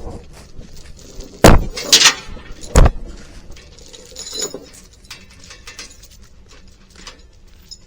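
Three loud bangs within about a second and a half, starting about a second and a half in, followed by lighter knocks and clatter.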